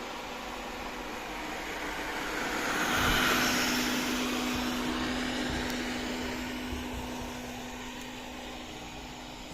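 Robot vacuum cleaner passing by: its whirring suction and brush noise swells to a peak about three seconds in, where a steady hum joins it, then slowly fades as it moves away.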